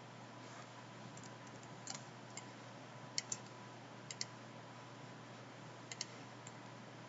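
Computer mouse clicking: a handful of sharp clicks at irregular moments, several in quick pairs, over a faint steady electrical hum with a thin high tone.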